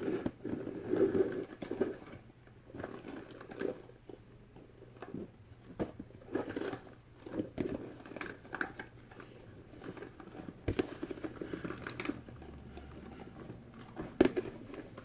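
Plastic fidget toys being handled and sorted: irregular clicks and light knocks, with some crinkling.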